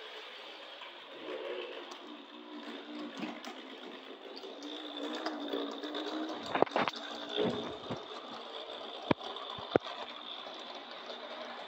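Model steam locomotive running along the track, its small electric motor and gears whirring steadily, with a few sharp clicks about halfway through and two more near the end.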